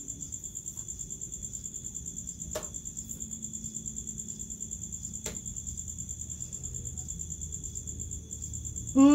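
Crickets chirping in a steady, fast, even pulse. Two short clicks come through it, a few seconds apart.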